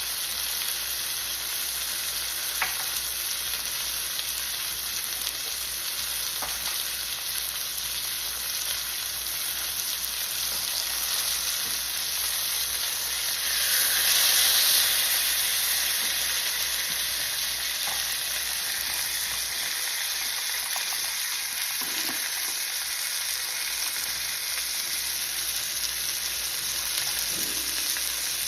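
Chicken breast pieces frying in a pan on low heat, a steady sizzling hiss that swells louder for a couple of seconds around the middle, with a few faint clicks.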